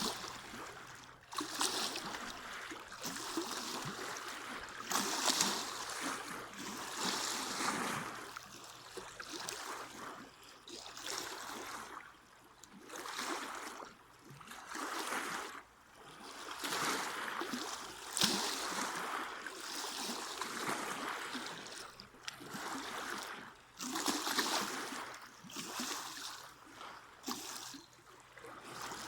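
Lagoon water splashing and lapping against the side of a small boat, in irregular surges every second or two.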